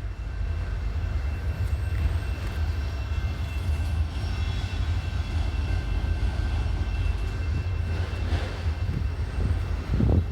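Steady low rumble of a vehicle on the move: road and engine noise.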